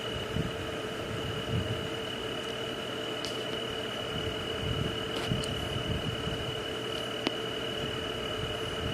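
Night-time nature ambience: a steady insect chorus with one continuous high tone and a lower steady hum. Irregular soft low thumps and a few faint clicks come over it.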